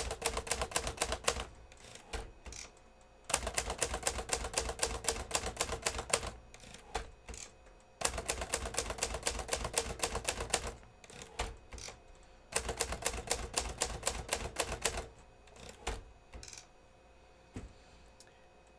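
1965 Hermes 3000 manual portable typewriter being typed on quickly: four runs of rapid keystrokes, each two to three seconds long, with a few single clicks in the pauses between them. The all-metal body is lined with sound-dampening material, so the typing is quiet.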